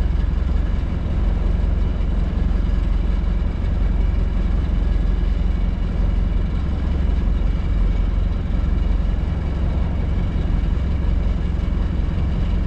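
Fishing boat's engine running steadily at low revs, a constant low hum with no change through the stretch.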